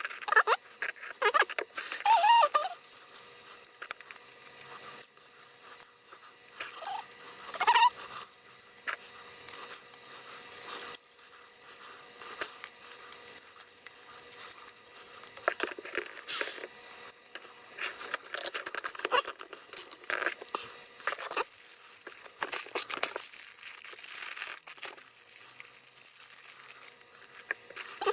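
Sped-up handling of segmented plastic flexible arms being snapped together and pushed into a metal base: rapid clicks, knocks and scrapes, with plastic packaging crinkling and a few brief high squeaky glides.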